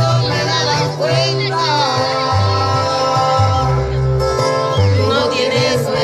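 Music with singing over a low bass line that steps back and forth between notes.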